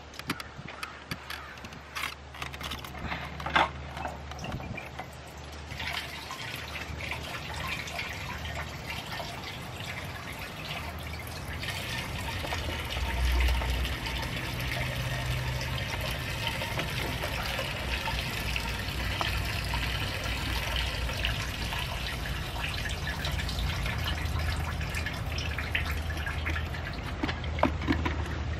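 Gasoline draining from a fuel pump module's plastic reservoir bucket, pouring and trickling back into the fuel tank as the module is lifted out. The flow grows steadier and louder partway through, after a few knocks of handling near the start.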